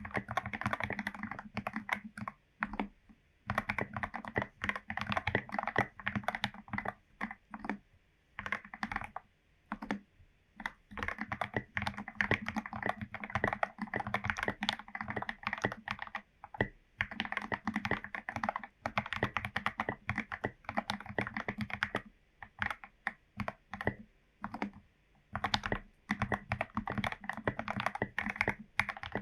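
Typing on a Royal Kludge RK84 mechanical keyboard with lubed Gateron Yellow linear switches, its case foam- and tape-modded: fast runs of keystrokes in bursts of a few seconds, broken by short pauses.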